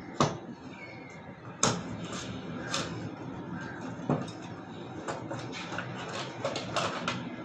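Cardboard box being opened by hand: the inner sleeve slid out and its card flaps folded open, giving a few sharp taps of the card early on and then a run of small scraping rustles.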